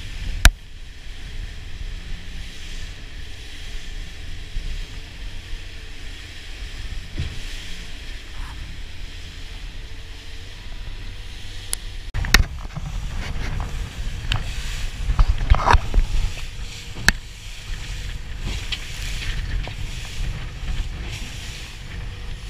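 Small aluminium fishing boat running at speed through choppy sea: a steady low rumble of engine and wind with water rushing past the hull. A sharp knock about half a second in, and from about twelve seconds in the sound grows louder with repeated thumps and knocks.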